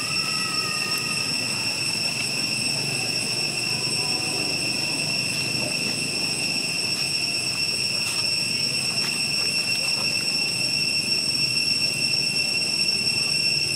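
Cicadas droning in one steady, high, unbroken tone, over a low, even rumble of background noise.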